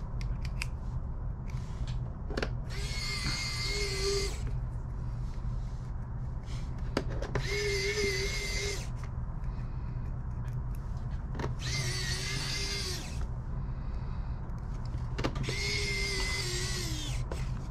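Cordless electric precision screwdriver (Fasttech Pro Auto Kit) driving four Phillips screws into the metal panel of a disc drive: four whirring runs of about a second and a half each, a few seconds apart, with a light click just before each.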